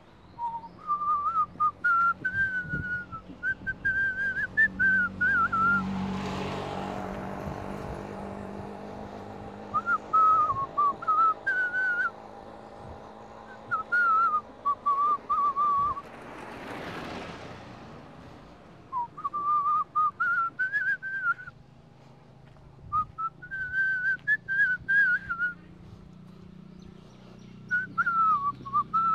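A person whistling a tune in short phrases with pauses between them. Twice, about six and seventeen seconds in, a passing vehicle swells up and fades away.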